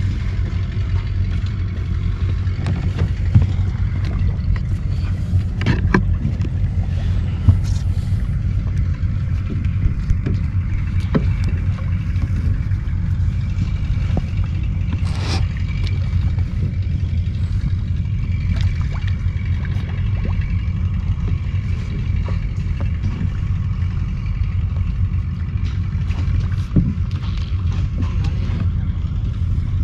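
Steady low rumble aboard a wooden fishing boat, with scattered light knocks and clicks as a fisherman hauls a hooked meagre in on a handline over the side.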